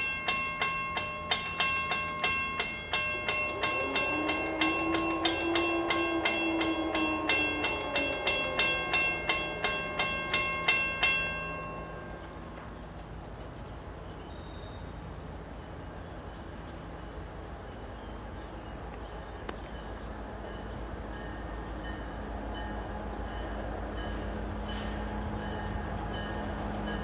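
Grade-crossing bell ringing about twice a second, cutting off suddenly about twelve seconds in. After that the low rumble of an approaching diesel locomotive grows slowly louder toward the end.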